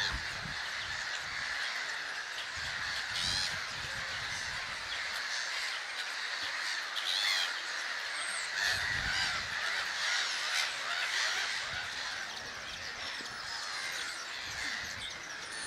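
Large grey-headed gull colony calling, many birds at once making a steady din, with single calls standing out above it every few seconds.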